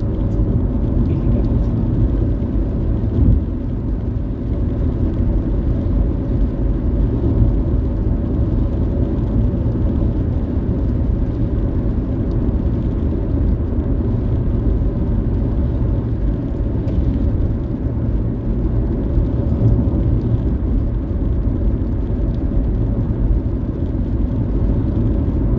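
Car driving along the road: a steady low rumble of engine and tyre noise.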